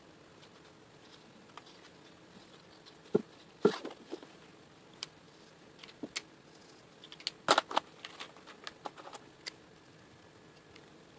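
Promarker alcohol markers being handled and used on a sketchbook page: scattered sharp clicks and taps. They come in a cluster about three to four seconds in and a busier run from about seven and a half to nine and a half seconds in.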